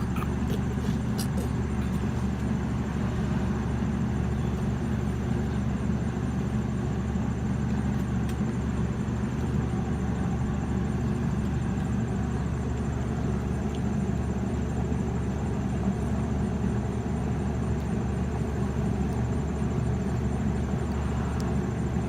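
Steady low hum of an idling car engine, even and unchanging throughout.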